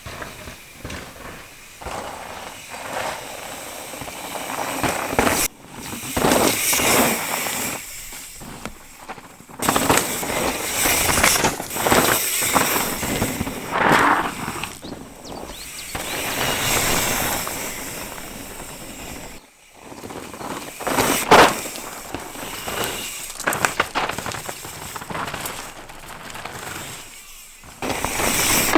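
Mountain bike ridden fast down a dirt trail: tyres crunching and skidding over loose ground, with frequent sharp knocks and rattles from the bike. The sound breaks off abruptly several times.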